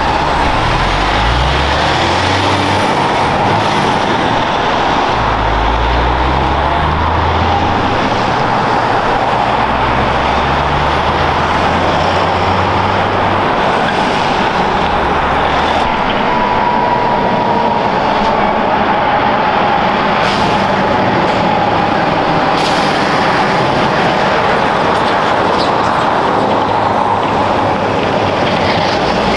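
Heavy trucks passing close by: diesel engines pulling through the gears in the first half, over loud, steady tyre and road noise.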